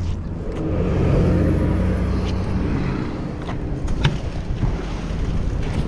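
A motor vehicle's engine hum, a steady low drone that swells over the first couple of seconds and then eases off. A few sharp clicks cut in over it around the middle.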